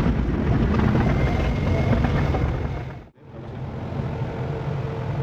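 Excavator engine running steadily. The sound drops out abruptly for a moment about three seconds in, then the engine runs on.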